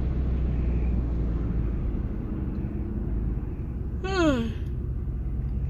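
A woman's wide yawn, voiced and sliding down in pitch, about four seconds in, over the steady low rumble of a pickup truck's cabin while driving.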